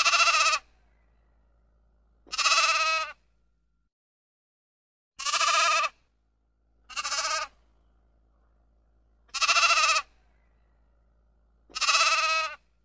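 Sheep bleating: six separate bleats about two seconds apart, each a short, wavering baa under a second long.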